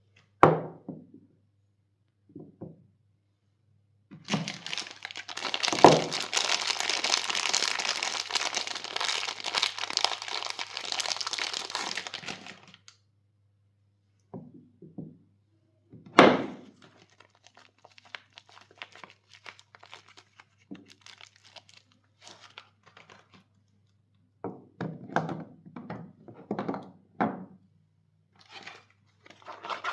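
Soap bars being unwrapped by hand: a wrapper crinkles and tears steadily for about eight seconds, between sharp thunks as a bar or box is set down. Light scattered taps and knocks follow near the end.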